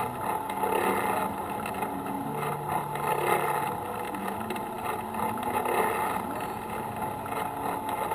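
A vehicle engine running steadily at low speed as it rolls slowly along.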